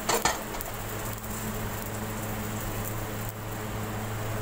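Paratha cooking on a hot iron tawa over a gas burner: a steady low hiss with a faint hum under it, after a brief knock right at the start.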